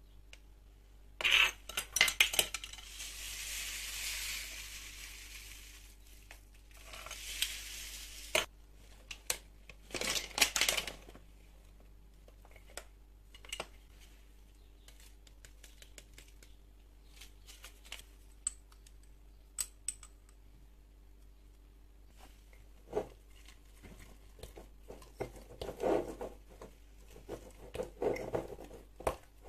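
Metal spoon clinking and scraping against a small glass jar as ingredients are spooned in, with a few longer rustling, pouring sounds in the first third. Near the end, quick scraping strokes as a thick dough is stirred in the jar.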